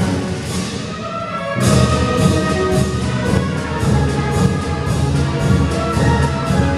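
Symphony orchestra playing a pasodoble: a sharp accent, then about a second and a half in the full orchestra with brass and timpani comes in on a steady beat.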